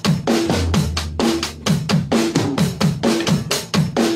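Background music with a fast, steady drum-kit beat and a bass line.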